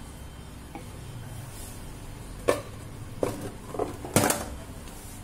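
A handful of hard knocks and clatters as a plastic mixer-grinder jar is handled and set down on a stone counter beside a bowl. The loudest knock comes about four seconds in.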